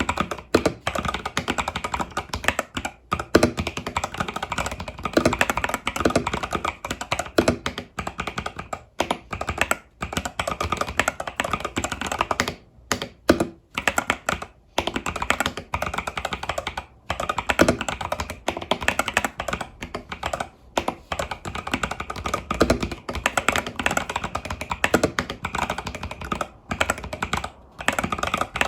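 Typing on an Epomaker TH80 Pro mechanical keyboard with Epomaker Budgerigar tactile switches and stock keycaps: a fast, continuous stream of keystroke clacks with only brief pauses.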